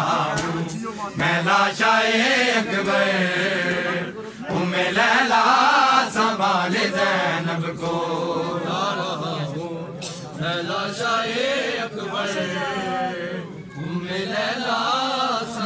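Men's voices chanting a Shia noha lament together in Urdu, with sharp slaps now and then, which fit matam hand-strikes on the chest.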